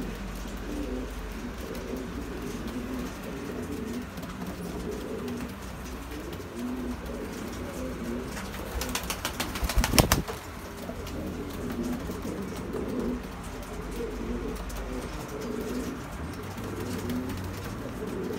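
Domestic pigeons cooing again and again, with a quick burst of wing flapping about halfway through.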